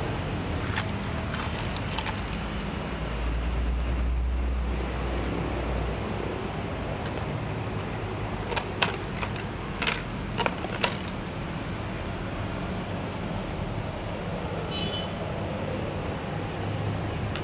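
Light plastic clacks as toy kitchen pieces and a plastic tray are handled and set down, about five sharp clicks clustered a little past halfway, over a steady low background rumble.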